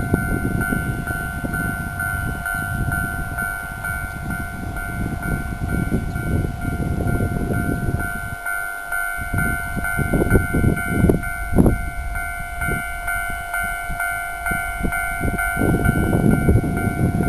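A Japanese level-crossing warning bell ringing in a steady pulsing two-tone pattern, over the rumble of a 583 series electric train running past, with a cluster of sharp rail-joint knocks about ten to twelve seconds in.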